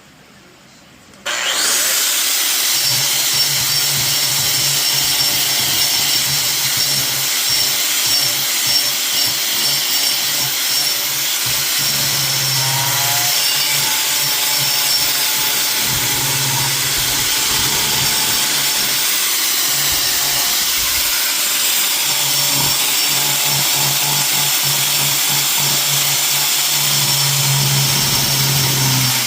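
A handheld power carving tool grinding and cutting into riverwood. It starts about a second in and runs loud and steady, with a low motor hum that comes and goes as it bites into the wood.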